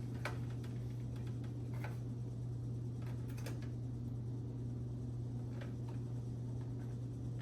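A few light, separate clicks and taps from handling the inside of a desktop PC case around its graphics card, over a steady low hum.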